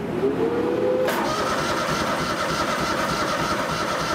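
Kohler CH730 V-twin engine on a compact utility loader being started with its electric starter. A rising whine for about the first second gives way to a steady, even engine sound that carries on.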